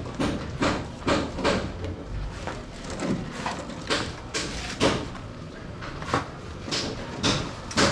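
An irregular series of sharp knocks or strikes, about one or two a second.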